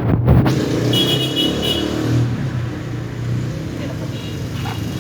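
Polytron washing machine spinning, its motor and tub running with a steady mechanical hum, with a knock right at the start. The spin works again now that the control module has been repaired.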